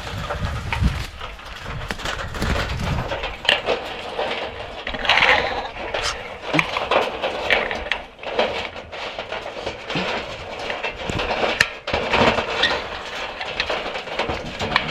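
Freshly caught wild parrots squawking harshly and irregularly, with scattered clicks and scrapes, as if from the birds moving about in their cage.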